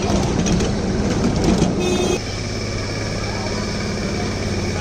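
A small toy train running steadily on a passenger ride, with people's voices over it at first. About two seconds in the sound changes abruptly to a steadier engine hum.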